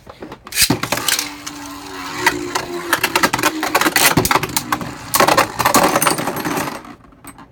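Two plastic Beyblade Burst tops launched with ripcord launchers, then spinning and clashing in a plastic stadium with rapid rattling and repeated sharp hits over a faint whir. The battle cuts off suddenly near the end as one top is burst apart.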